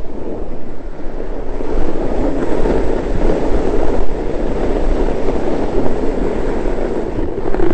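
Snowboard sliding and carving over hard-packed groomed snow, a steady rough scraping hiss, with wind buffeting the microphone.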